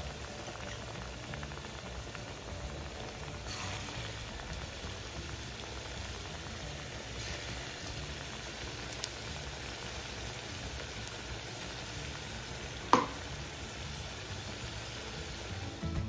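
Pakora batter deep-frying in hot oil in a kadhai, a steady sizzle, with one sharp click late on.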